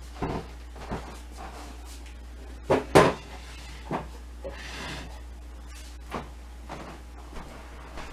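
Scattered knocks and clunks of objects being handled and set down, the loudest a double clunk about three seconds in.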